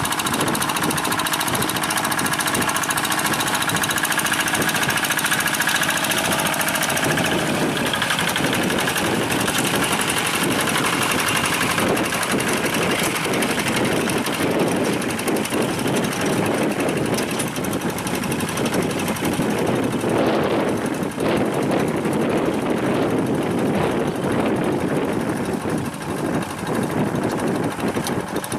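Single-cylinder diesel engine of a two-wheel hand tractor running under load with a steady, rapid knocking chug while it pulls a harrow through paddy mud. The sound shifts about seven seconds in.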